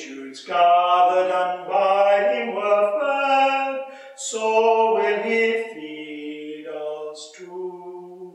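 Unaccompanied hymn singing, with long held notes. It grows softer over the last few seconds.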